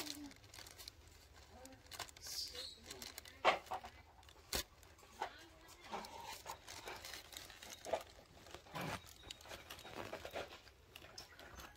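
Yellow plastic sheet crinkling and rustling in scattered short clicks as a baby macaque grips and tugs at it.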